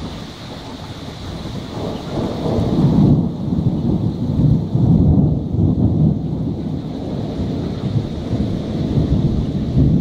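Rolling thunder from a thunderstorm: a deep rumble that swells about two seconds in and rolls on in waves, with rain hissing steadily underneath.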